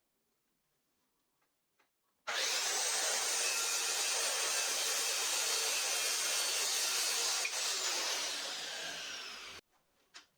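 Power saw cutting through wood: it starts suddenly about two seconds in and runs steadily, then the motor winds down with a falling whine and stops abruptly near the end.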